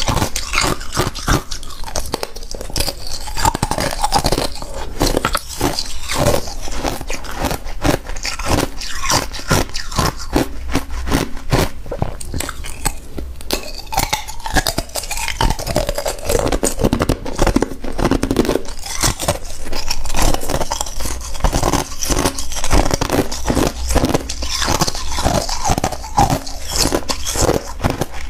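Thin sheets of ice being bitten and chewed: a dense, unbroken run of sharp crunches and crackles.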